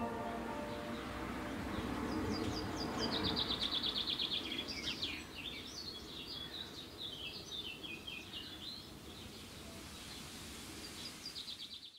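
Small songbirds singing over a steady outdoor background hiss: quick high chirps and fast trills of rapidly repeated notes, the liveliest about three seconds in and again near the end.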